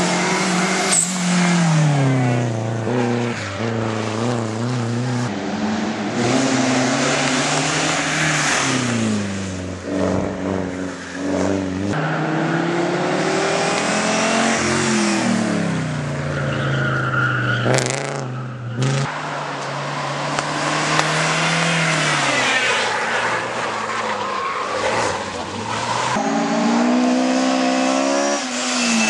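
Racing car engines at full throttle on a hill climb, the pitch climbing hard and dropping at each gear change as the cars accelerate uphill. There is a short sharp rasp a little past the middle.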